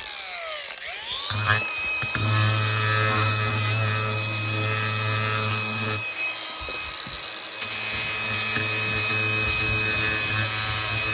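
Electric power tool motor running at a steady pitch, dipping and speeding back up about a second in, then held steady.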